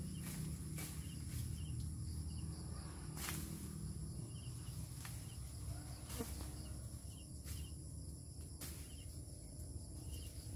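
Insects droning steadily in a sugarcane field, with small chirps every second or two over a constant low rumble. A few sharp clicks break in, about three and six seconds in and near the end.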